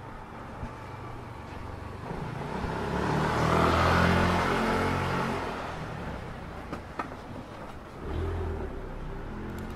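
A motor vehicle drives past on the street, its engine and tyre noise rising to a peak about four seconds in and then fading away. A second, shorter swell of engine noise comes near the end.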